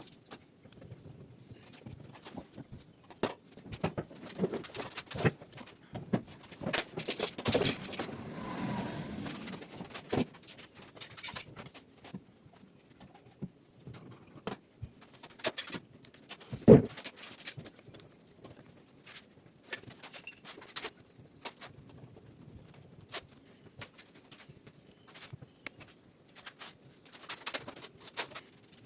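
Irregular knocks and taps, with one loud thump about 16 seconds in.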